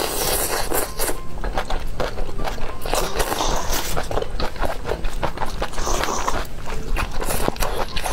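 Close-miked eating sounds: wet chewing, smacking and slurping of noodles and food, with many short irregular clicks and crackles.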